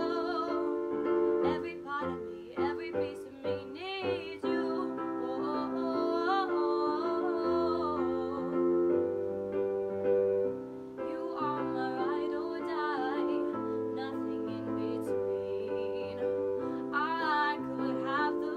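A woman singing solo over piano chords. The piano holds sustained chords with a changing bass note, and her held notes waver with vibrato. The singing pauses briefly about eleven seconds in while the piano carries on.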